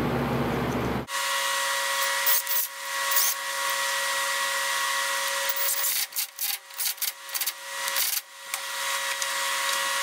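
Bolts being run into the dog-clutch housing on a Dana 44 front axle with hand tools: bursts of irregular clicking and scraping of metal, about two seconds in and again from about six to eight seconds, over a steady faint whine.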